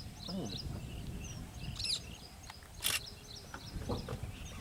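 Small birds chirping repeatedly over a low rumble, with one short sharp noise about three seconds in.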